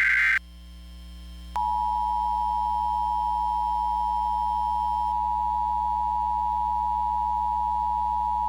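Emergency Alert System tones: the last of the warbling digital header bursts cuts off about half a second in. About a second later the steady two-tone attention signal starts and holds without change, announcing a severe thunderstorm warning.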